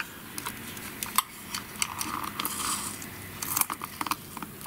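Tape being pulled off a small handheld tape dispenser and torn, with a run of small clicks and crinkles from the dispenser, tape and paper being handled. Short rasping stretches come about a second in and again around two seconds in.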